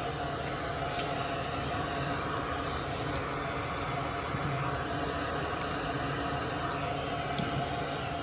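Steady hum and hiss of background machine noise, with a few faint small clicks.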